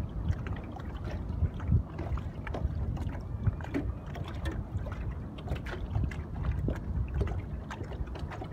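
Small waves lapping against a boat's hull, with irregular little splashes and clicks, over a low rumble of wind on the microphone.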